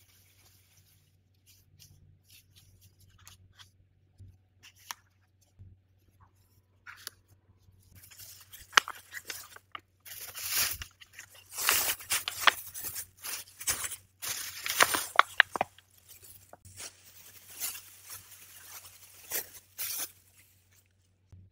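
Plastic cling film and a plastic bag crinkling and rustling as they are handled, in dense irregular crackles that are loudest in the middle stretch. A faint steady low hum runs underneath.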